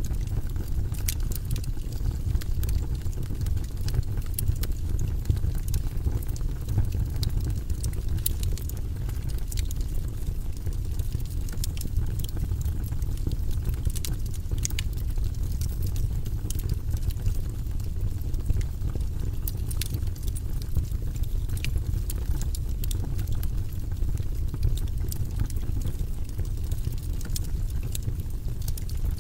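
Wood burning in a fireplace, crackling and popping at irregular moments over a steady low rumble.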